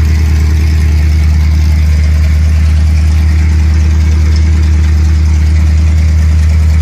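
An engine running steadily at idle, a loud, even low drone that holds without revving.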